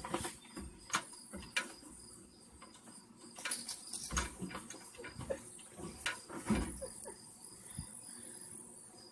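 Crickets chirping steadily in a high, pulsing trill, with a few soft knocks and rustles close by.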